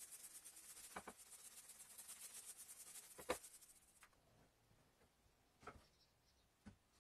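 Paint roller rolling paint across a board: a faint, rapid, even swishing with a couple of knocks, stopping about four seconds in. Two light knocks follow near the end.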